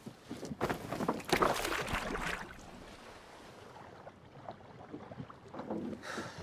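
A fishing net heaved over the side of a wooden boat, rustling and splashing into the water for about two seconds, followed by quieter wind and water.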